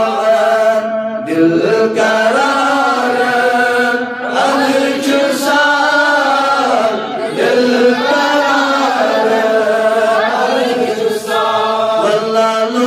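A man singing a manqabat, an Urdu devotional poem, solo and unaccompanied, in long melodic phrases.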